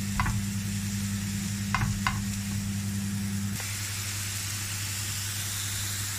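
Sliced mushrooms sizzling steadily as they fry on high heat in garlic butter and oil in a non-stick frying pan, with a few light taps and scrapes of a silicone spatula stirring them in the first two seconds. A steady low hum runs underneath.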